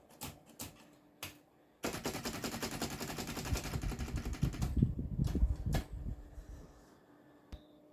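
Olympia SM3 manual typewriter: a few single keystrokes, then a rapid run of clacking for about three seconds, then two more strikes and a light click near the end.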